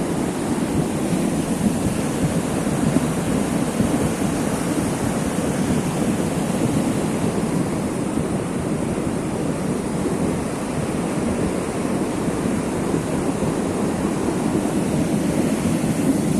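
Flooded mountain creek in spate rushing past: a steady, loud rushing of churning whitewater and standing waves.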